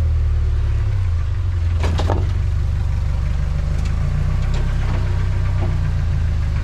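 Toyota pickup's engine running at low, steady revs while crawling over rocks, with a short clatter about two seconds in and a few faint ticks later.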